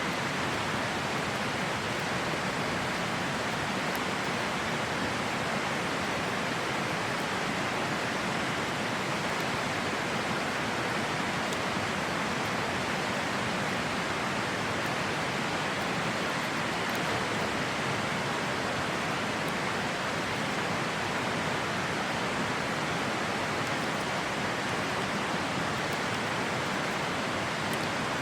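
River water flowing steadily, with a few faint crackles from a campfire.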